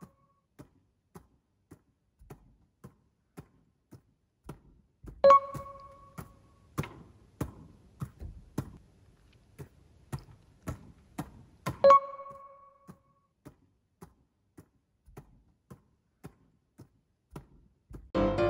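Volleyball repeatedly set straight up with the fingertips, a soft slap of the ball on the hands about twice a second in a gym. A short chime sounds twice, about five and twelve seconds in, and music starts near the end.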